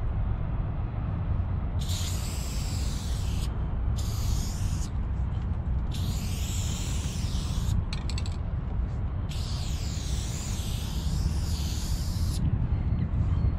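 Rust-Oleum aerosol spray-paint can being sprayed in four separate bursts of roughly one to three seconds each, the last and longest ending about a second before the end. A steady low rumble runs underneath.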